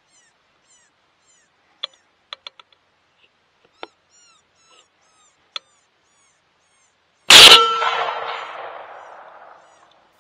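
A single rifle shot about seven seconds in, very loud, its report rolling away over a couple of seconds. Before it, a few faint clicks.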